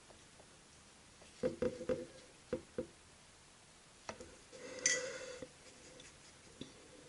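Quiet sounds of painting with a fine brush on pastel paper: a few soft taps and clicks, a brief murmur from the painter about one and a half seconds in, and a short rustle of the paper sheet about five seconds in.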